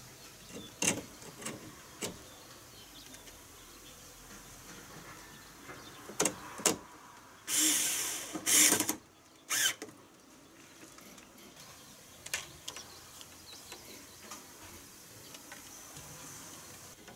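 Cordless drill-driver running in three short bursts, about halfway through, driving a screw that fixes a pipe joint to the car's roof grab-handle mount. Before that come a few light clicks and knocks as the parts are handled.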